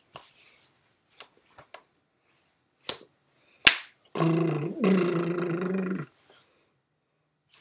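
Sharp hand smacks, palms striking each other and the chest while signing, the loudest about three and a half seconds in. Then comes about two seconds of a man's wordless drawn-out vocal sound, whose pitch steps up partway through.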